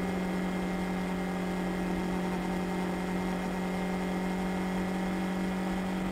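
Yamaha R3 parallel-twin engine running at a steady cruise, a constant drone with wind and road noise over it, under a soft held tone of ambient background music.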